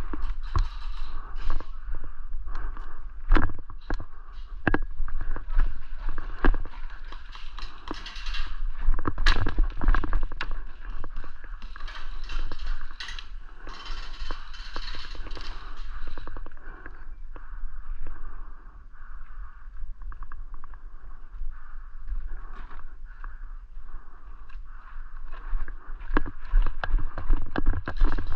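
Irregular sharp clicks and knocks from a player moving with airsoft gear, with a brief hissing rustle about fourteen seconds in.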